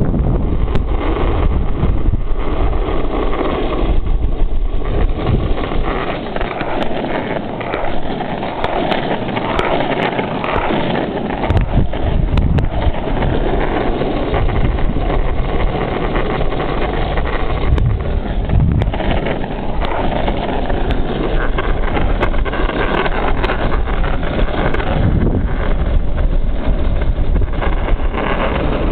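Wind rushing over the microphone and the urethane wheels of a Sector 9 Scriber longboard rolling on asphalt during a fast downhill run, a loud steady rush with no let-up.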